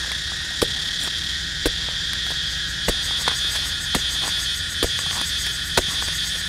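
A knife blade chopping into dry, hard soil, a sharp click with each strike about once a second at uneven intervals, over a steady high-pitched drone of insects.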